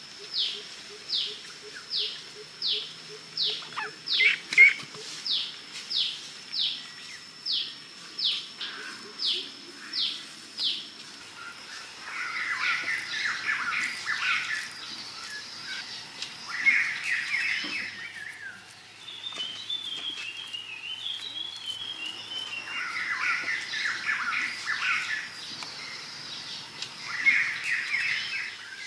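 Forest birds calling. For about the first eleven seconds one bird repeats a short, high, falling whistle a little over once a second. After that, bursts of busy chattering calls come and go, with a quick run of higher notes in the middle.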